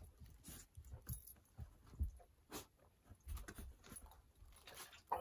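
Faint gulping and swallowing of soda from a large plastic bottle: a string of soft, irregular gulps with small clicks from the mouth.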